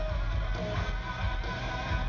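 Rock band playing live through an arena PA, heard from the audience: electric guitar to the fore over drums and bass, with steady low kick-drum thumps.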